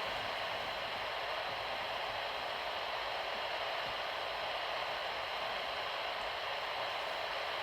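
Weather radio receiver tuned to the dead KIG86 frequency, giving out a steady static hiss: with the transmitter off the air there is no signal, only noise.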